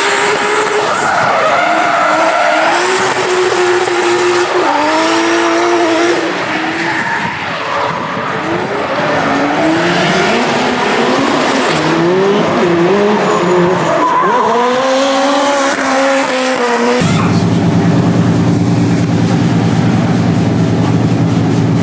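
Drift cars at full throttle, engines revving up and down hard through the corners, with tyre squeal and skidding. About seventeen seconds in the sound cuts suddenly to a steady low drone.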